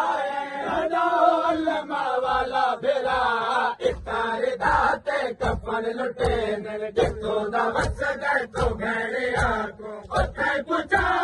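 Men chanting a noha, a Shia mourning lament, together in unison, with rhythmic chest-beating (matam) slaps about twice a second that grow plain from about four seconds in.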